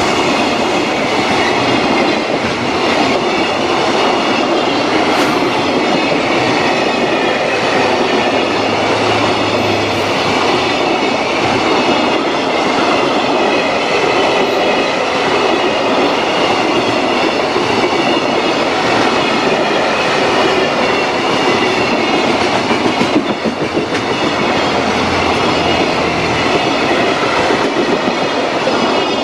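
Container freight wagons of a passing freight train rolling by close at speed: a loud, steady rumble of steel wheels on rail, with the clickety-clack of wheels over rail joints.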